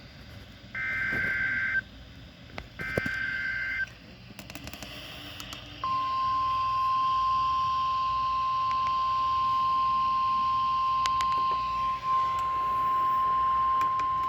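NOAA Weather Radio Emergency Alert System broadcast heard over a radio receiver. The last two of the three SAME digital header bursts play, each about a second of shrill two-tone data warble. After a short hissy pause, the steady single-pitch 1050 Hz weather radio alert tone begins about six seconds in.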